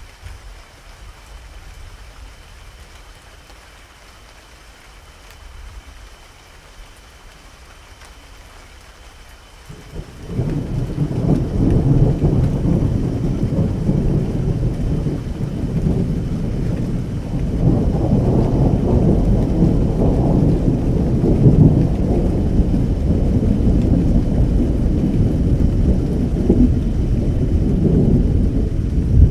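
Steady rain falling in a thunderstorm. About ten seconds in, a loud, low rumble of thunder breaks in and keeps rolling, swelling again a few seconds later.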